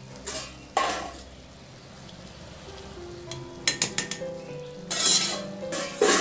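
Metal utensils and a cooking pot clattering and scraping as the biryani is handled and stirred, with a few sharp clinks near the start, a quick cluster of clinks about four seconds in and a scrape shortly after. Faint background music runs underneath.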